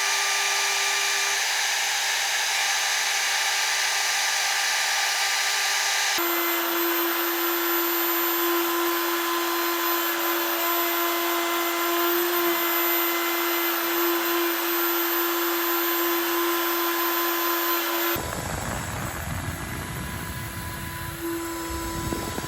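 CNC milling spindle running at high speed with an end mill cutting: a steady whine over cutting noise. The sound changes abruptly about six seconds in and again near the end as one cut gives way to another, and the last one has more low rumble and is a little quieter.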